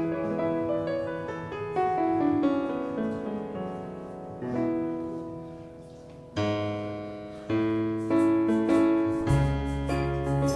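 Slow instrumental piano music: notes and chords struck and left to ring and fade, with deeper bass notes joining near the end.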